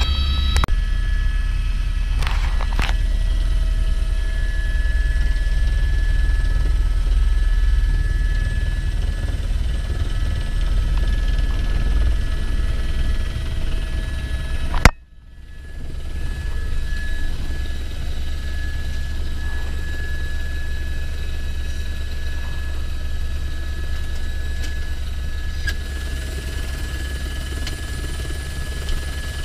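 Helicopter turbine engine and rotor heard from inside the cabin: a steady low thrum with a high, even whine. About halfway through a sharp click and a brief drop-out, after which the helicopter runs on slightly quieter, sitting on the snow with its door open.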